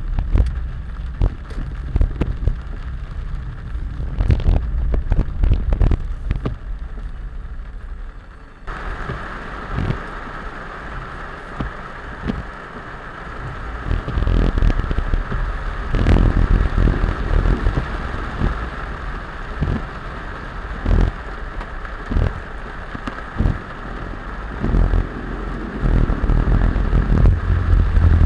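Heavy rain with scattered clicks of drops over a low rumble from a vehicle. About nine seconds in, a steady hiss comes in and stays.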